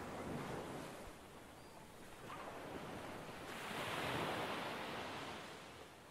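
Faint waves washing on a harbour shore, a soft even rush that swells about three and a half seconds in and then eases off.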